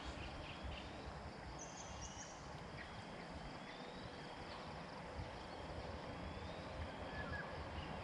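Faint outdoor ambience: a low, irregular wind rumble on the microphone, with a few faint, short bird chirps.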